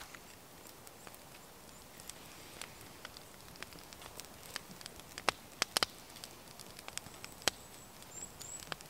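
Newly lit kindling fire of fat-wood shavings and dry twigs crackling with sparse sharp pops, a few louder ones past the middle as the flames take hold.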